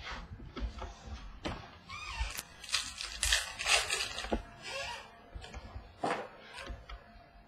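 Trading-card pack wrapper being torn open and crinkled for a couple of seconds, with sharp taps of cards and packs handled on a table before and after.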